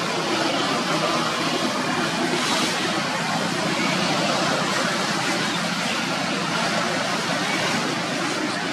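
Steady rushing noise of road traffic running through the whole stretch with no clear peaks.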